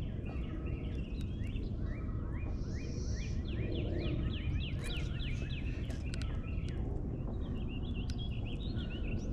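Songbird singing: a run of about a dozen quick sliding notes over three or four seconds, then a brief twitter near the end, over steady low outdoor background noise.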